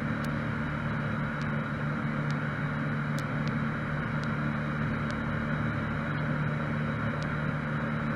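Cessna 152's four-cylinder Lycoming engine running steadily in flight, an even drone heard in the cabin. A faint steady high tone sits over it, with a few faint ticks.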